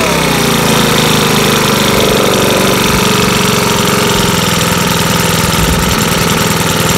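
Makita BHX2500CA four-stroke leaf blower engine dropping from a brief rev back to idle just at the start, then idling steadily.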